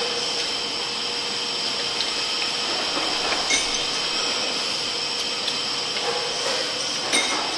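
Automatic welding machine for stainless steel door handles running: a steady hiss with a high, thin whine over it. A short click sounds about halfway through and another near the end as parts are handled.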